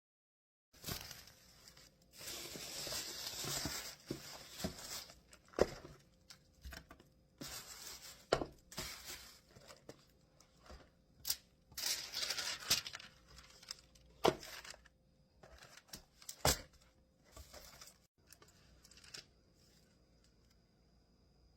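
Takeout food packaging being handled: bouts of rustling, crinkling and tearing, broken by a few sharp clicks or knocks. The handling dies away near the end.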